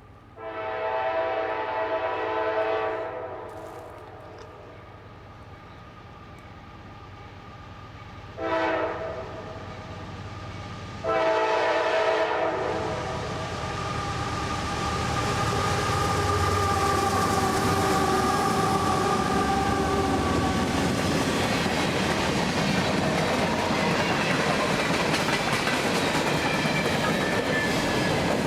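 CSX freight locomotive's air horn sounding a long blast, a short blast and then another long one for the grade crossing. The train then rolls past with a steady rumble and clickety-clack of wheels, and the horn's tone fades under it.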